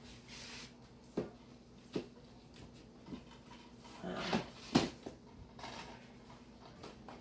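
Plastic DVD cases being handled and stacked together: a few light clicks and knocks, the loudest pair a little past the middle.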